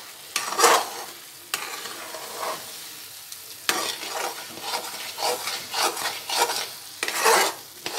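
Spatula scraping and stirring a thick coconut burfi mixture of grated coconut and sugar syrup in a pan, in irregular strokes over a steady sizzle of the mixture frying in ghee. The mixture has reached the stage where it comes away from the pan without sticking.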